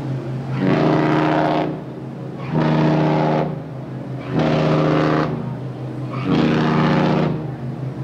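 Cruise ship Majesty of the Seas' horn sounding a series of short blasts. There are four blasts of about a second each, evenly spaced about two seconds apart, each a steady low note.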